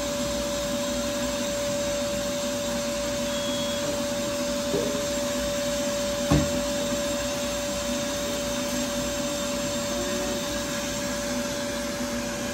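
Steady blowing hum of a Cryo cold-air skin-cooling unit running during laser tattoo removal, with one steady tone under the air noise. A single short knock about six seconds in.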